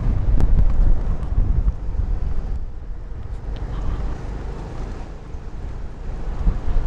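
Low rumble of a car driving slowly, heard from inside the cabin. It is louder for the first two seconds, then eases.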